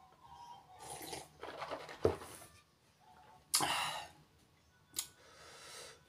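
Eating and drinking sounds: a sip from a plastic cup and swallowing, then irregular chewing and mouth noises, with a sharp click about two seconds in and a short, louder hiss about three and a half seconds in.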